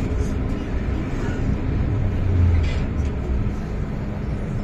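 Interior running noise of an MTR Island Line M-Train car: a steady low rumble of wheels and running gear with a faint steady hum, swelling briefly about halfway through.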